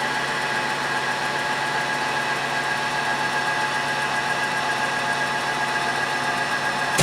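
Eldorado M75-1031 gun drilling machine running its automatic cycle: a steady motor hum with a high whine as the spindle turns and the head feeds forward at a fast rate, with a single knock at the very end.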